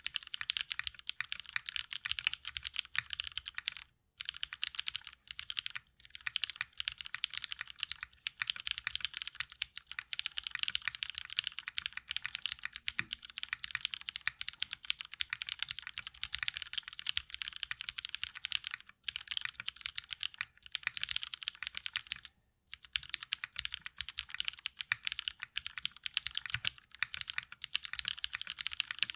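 Fast, continuous typing on a gasket-mounted mechanical keyboard with lubed linear switches (Kailh Brown stems in Cherry MX Black housings) and CRP keycaps, with a few brief pauses.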